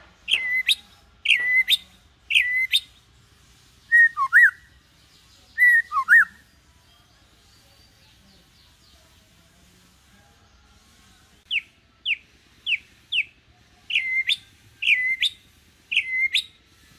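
White-rumped shama singing in short whistled phrases: three rising-and-falling notes, two lower warbled notes, a pause of several seconds, then a quick run of five falling notes and three more of the opening notes. The bird is kept in low condition so that its song stays calm rather than aggressive.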